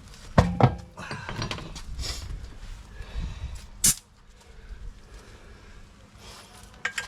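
A tyre and alloy wheel being turned over and handled, with two heavy thuds about half a second in and knocking and scraping after. A single sharp clack comes about four seconds in.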